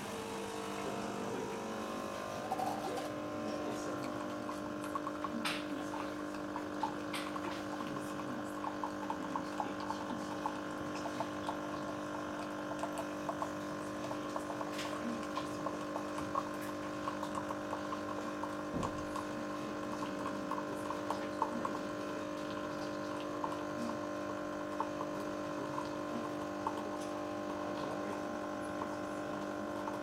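Nespresso Momento coffee machine brewing a capsule: its water pump hums steadily, with a fine crackle of coffee flowing into the cup. The hum starts right at the beginning.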